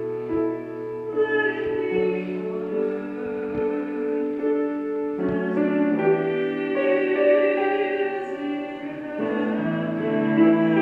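Mixed church choir singing an anthem in harmony, holding chords that change every few seconds, over piano accompaniment.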